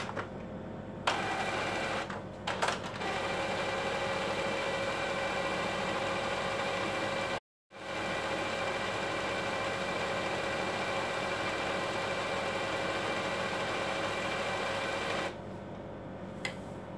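Epson L4160 inkjet printer's mechanism running steadily right after power-on, its motors whirring at an even pitch, with a few clicks near the start. It initialises for about fourteen seconds, with a brief dropout about halfway, then stops, and a single click follows near the end.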